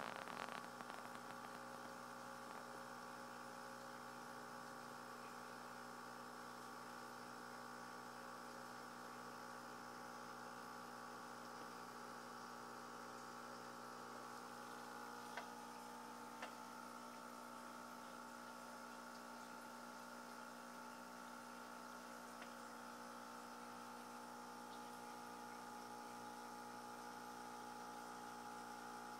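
Faint, steady electrical hum of running aquarium equipment, made of several fixed tones, with a couple of faint clicks about halfway through.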